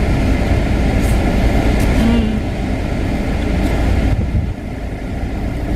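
Steady low rumble inside a parked car with its engine idling and the air conditioning running, one side's windows open to the outside; the higher hiss drops away a little after four seconds in.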